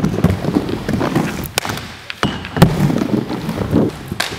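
Inline skate wheels rolling over the wooden ramps of a skatepark bowl, with a rumble broken by several sharp clacks and thumps, the loudest about a second and a half in, near the middle and near the end.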